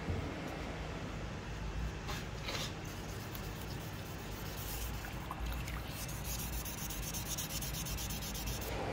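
Steady abrasive rubbing worked by hand on the knife, as of sanding, with a few light knocks along the way.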